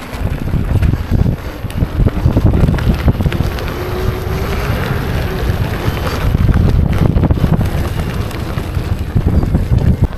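Wind buffeting the microphone while a KingSong S22 Pro electric unicycle is ridden off-road, with a heavy low rumble and scattered knocks from the ride over rough ground.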